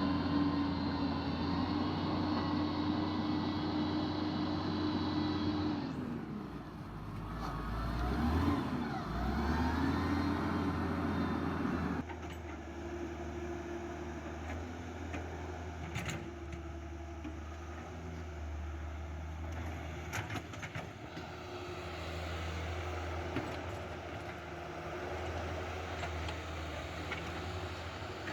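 Electric motors of a Huina radio-controlled excavator and wheel loader whining steadily over a low hum, the whine rising and falling in pitch as the machines move. The sound changes abruptly twice, and there are a few sharp clicks in the second half.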